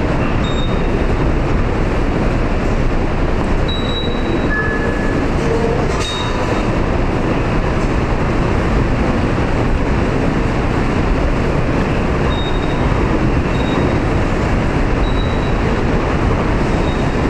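Loud, steady subway station rumble, with a few short high beeps scattered through it.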